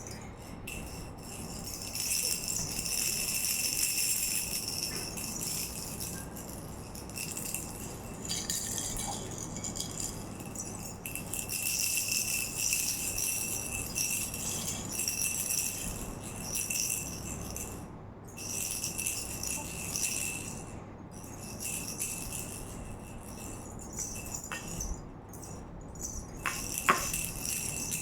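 Jingling rattle toy being shaken, in stretches of a few seconds with short pauses between them.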